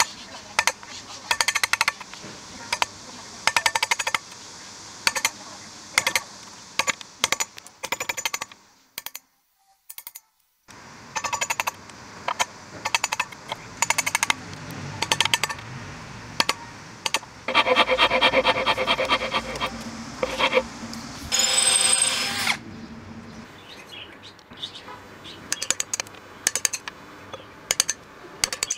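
Wood chisel cutting into a small wooden block clamped in a steel bench vise: repeated sharp knocks and clinks in quick bursts. There is a brief pause about a third of the way through, and a short high-pitched squeak about three-quarters of the way through.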